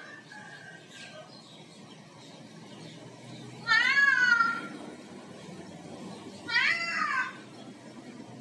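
Two cat meows about three seconds apart, each rising then falling in pitch, the first a little longer.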